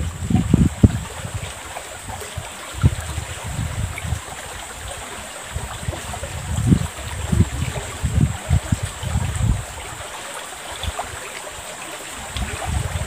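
Wooden pestle pounding shredded papaya in a mortar: irregular dull thumps, about two a second in the middle stretch, over the steady rush of a shallow river flowing past.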